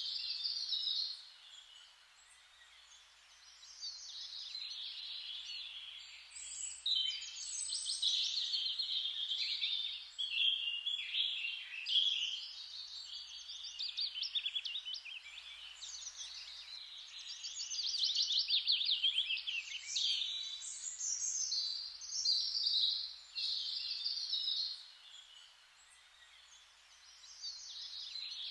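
Songbirds singing: rapid trills and warbling phrases follow one another almost without a break, with a short lull near the start and another near the end.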